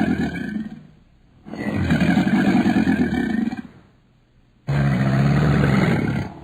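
Crocodile bellowing in deep, rumbling roars. One bellow fades out about a second in, a second runs for about two seconds, and a third starts near the end.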